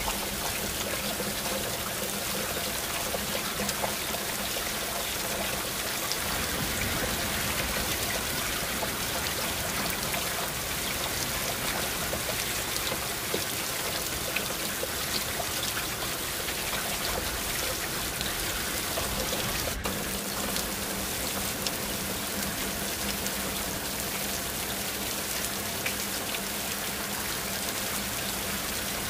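Heavy rain falling steadily through an open window: a dense, even hiss of rain with scattered sharp ticks of individual drops.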